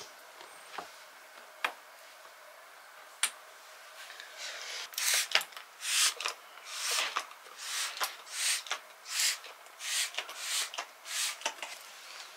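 A few scattered light clicks, then a run of rhythmic swishing or rubbing strokes, about one and a half a second.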